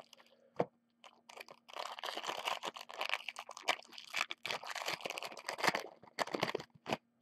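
Foil wrapper of a Panini Prizm basketball hanger pack crinkling and crackling as it is handled and torn open by hand, starting about two seconds in.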